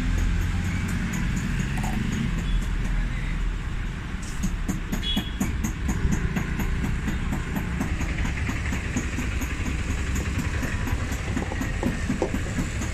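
Busy street traffic as a steady low rumble, with scattered small clicks and taps from metal heater parts being handled.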